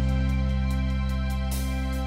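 Slow, sad instrumental background music, with keyboard chords held steadily.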